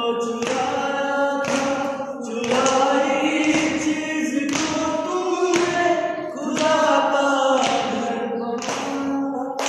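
A group of young people singing a slow Hindi-Urdu love song together without instruments, long held notes, with a beat struck about once a second.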